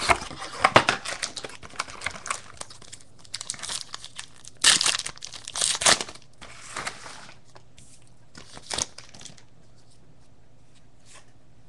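Cardboard card box lid being opened, then a trading-card pack wrapper crinkling and tearing open in short, irregular bursts over the first nine seconds or so.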